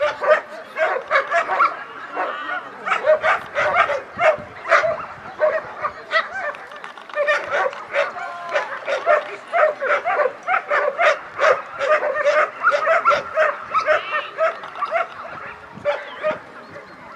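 German Shepherd barking rapidly and without pause, several barks a second with high yips mixed in, as it guards a motionless helper in a protection test.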